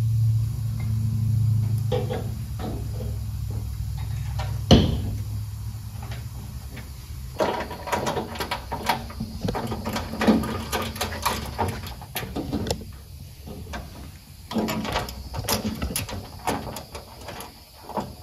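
Knocking, clanking and scraping from handling a metal mobile workbench cabinet and its parts: a single sharp knock about five seconds in, then a busy run of clanks and scrapes.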